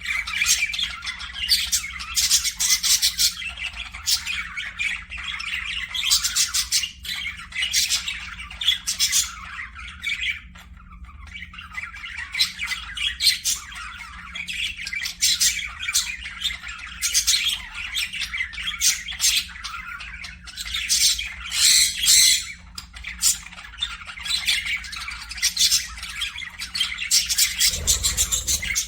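Parakeets chattering in a dense, continuous run of short chirps and squawks, with a faint steady low hum underneath and a brief low thump near the end.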